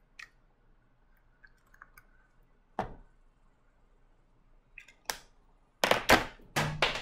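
Scattered light clicks and taps, then near the end a quick run of loud clattering knocks as small objects are dropped onto a table.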